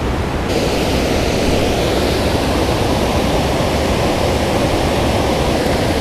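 Steady rush of river water pouring below a spillway, an even wash of noise that turns hissier about half a second in.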